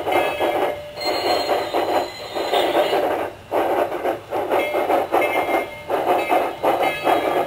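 A Phoenix 2K2 sound card in a Bachmann large-scale Shay model playing steam-locomotive exhaust chuffs through the model's speaker. The chuffs come in repeated surges broken by short dips about once a second as the model runs along the track.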